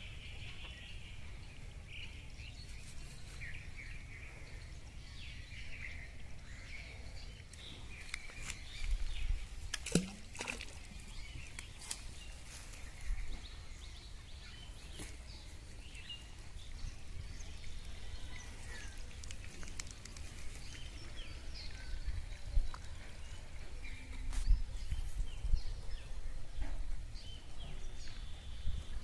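Rural outdoor ambience: birds chirping now and then over a steady low rumble of wind on the microphone, with a few sharp clicks and rustles.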